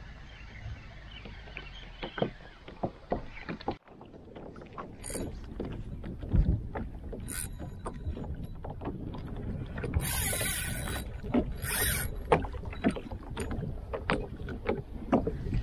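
Water lapping and slapping against a plastic fishing kayak's hull, with irregular knocks and clicks of gear against the hull. The sound breaks off abruptly about four seconds in, and later there are two short hissing bursts.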